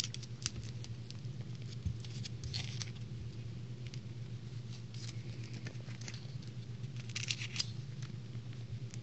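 Foil wrapper of a chocolate egg crinkling and crackling in irregular bursts as it is peeled open, with a low steady hum underneath.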